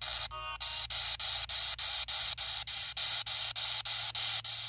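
P-SB7T spirit box radio sweeping through stations: a loud hiss of static chopped into even bursts about four times a second over a steady low hum, with a brief pitched snatch of broadcast sound about half a second in.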